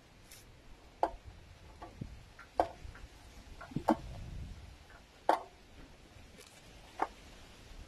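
A series of sharp clicks or snaps at irregular intervals, about five loud ones, roughly one every one to one and a half seconds, with a few fainter ones between.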